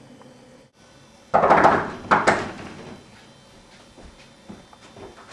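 Two loud rounds of banging on a door, the first about a second in and the second just after, followed by quieter knocks and movement.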